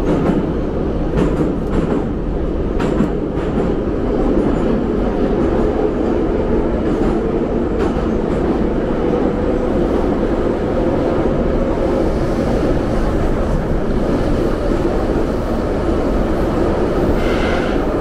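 Metro train running at speed, heard from aboard the carriage: a loud, steady rumble with a few sharp clicks from the wheels and track, and a brief higher squeal near the end.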